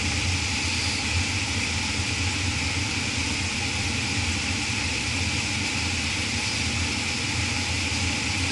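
Steady machinery drone with a strong low hum, holding level and unchanging throughout.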